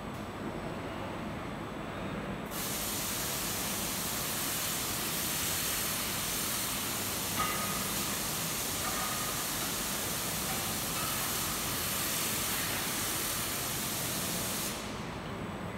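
Steady hiss from the robotic work cell, starting suddenly about two and a half seconds in and cutting off shortly before the end, over a constant low machine hum. A few faint short tones sound about halfway through.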